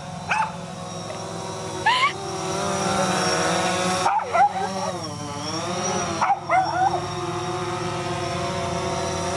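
DJI Phantom 4 quadcopter's rotors whining steadily close by, the pitch dipping and rising as it manoeuvres, while a bichon frise gives several short yips and barks at it.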